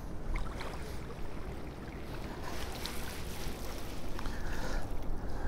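River water running and lapping at the bank, with wind rumbling on the microphone.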